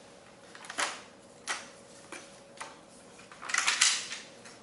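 Clicks and light knocks of a folding camp table's metal frame and plastic joints being pressed into its aluminium carry case: four separate knocks, then a quick cluster of clatter about three and a half seconds in.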